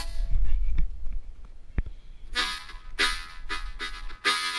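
Music: a run of short, held chords that pauses for about two seconds near the start and resumes with several chords in quick succession, over a low rumble during the pause.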